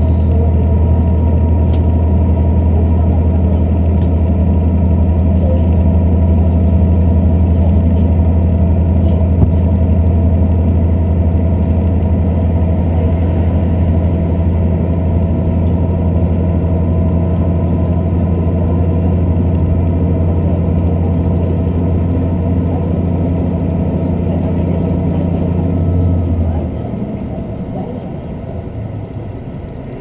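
Diesel express train heard from inside the passenger car: a steady low engine drone over the running noise, which cuts off abruptly near the end and leaves quieter wheel and rail noise.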